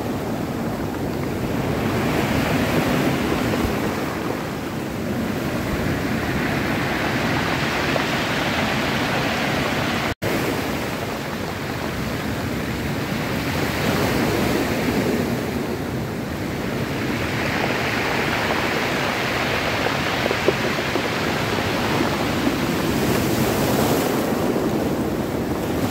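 Ocean surf breaking on rocks, a continuous wash that swells and fades every five or six seconds. The sound drops out for an instant about ten seconds in.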